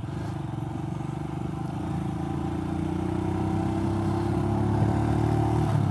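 Royal Enfield Himalayan's single-cylinder engine pulling in first gear, its level building slowly, then easing off just before the end.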